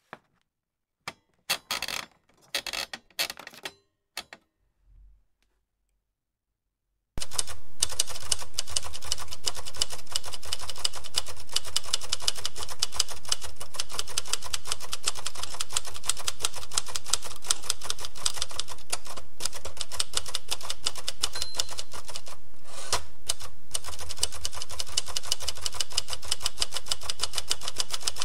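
Typewriter keys struck in a few hesitant, scattered clicks, then after a short silence fast, continuous typing starts about seven seconds in and keeps going with only brief breaks.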